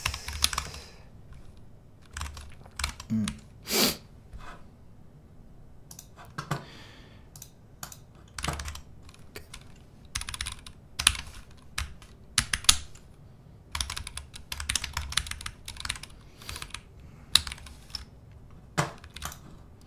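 Typing on a computer keyboard: irregular keystrokes in short runs, with pauses between them.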